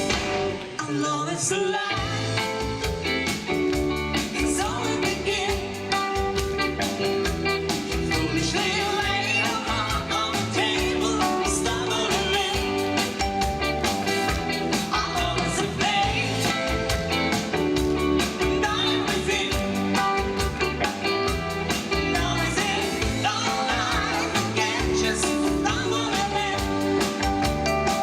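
Live rock band playing a rock-and-roll style song, with singing over electric guitar, bass guitar, keyboards and a drum kit keeping a steady beat.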